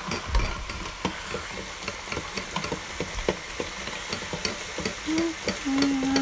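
Potato fries deep-frying in hot oil in a deep-fryer basket: a steady sizzle full of small crackling pops, with metal tongs stirring the fries. Near the end, a few short, steady low tones sound over the frying.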